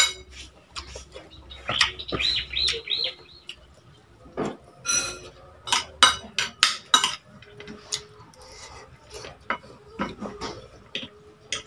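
Fork and spoon clinking and scraping on a plate, in many short clicks. About two seconds in, a bird calls a quick run of about five rising-and-falling notes.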